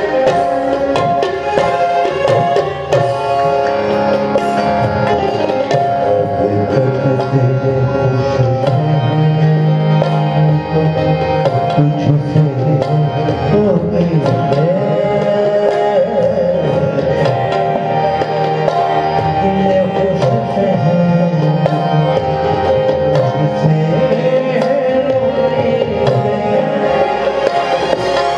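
Tabla and harmonium playing the accompaniment to a ghazal in Raga Yaman. The harmonium holds sustained chords under a steady run of tabla strokes, and a pitch briefly glides and wavers near the middle.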